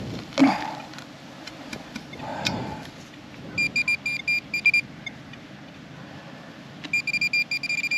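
Metal-detecting pinpointer beeping in the dig hole. A short run of rapid high beeps comes a few seconds in. Near the end the beeping starts again and quickens to an almost continuous tone as the probe closes on the buried coin. Before the beeping, a couple of scraping knocks of digging in soil.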